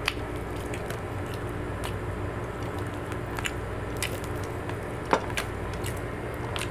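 Eating sounds at a table: chewing, with a few sharp clicks of cutlery and a glass against plates and tabletop, the loudest about five seconds in, over a steady low hum.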